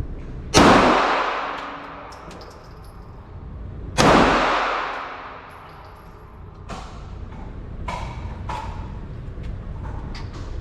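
Two gunshots about three and a half seconds apart, each echoing for over a second in the indoor range. A few lighter knocks and clanks follow in the second half.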